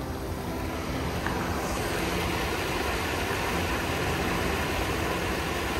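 Stream water rushing over a low rocky weir: a steady, dense rush of white water.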